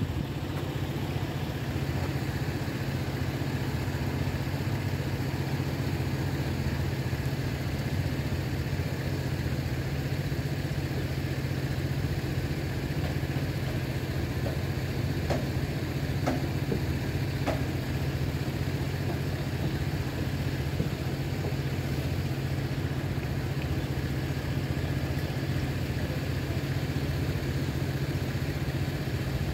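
Steady low hum of idling engines, with three faint clicks about halfway through.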